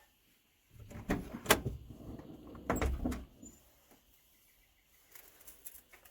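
Handling noises: a run of knocks and scrapes with a low rumble over the first few seconds, then faint light clicks near the end.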